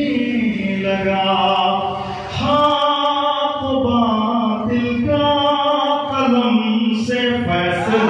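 A solo male voice chanting an Urdu devotional poem (manqabat) to a melody, in long held phrases with brief breaks for breath, through a microphone.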